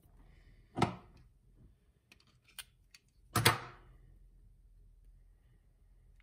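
Handling noises from wrapping PTFE thread-seal tape onto a foam lance's brass threaded fitting: scattered small clicks, with two short, louder rustling noises, about a second in and about three and a half seconds in.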